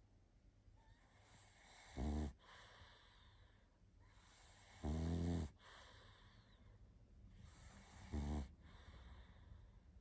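A sleeping pug snoring: three short rasping snores about three seconds apart, the middle one the longest, with soft wheezy breathing between them.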